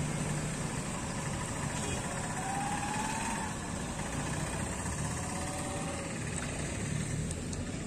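Steady outdoor background with a low engine hum, like a motor vehicle idling. A faint, brief rising tone comes through about two and a half seconds in.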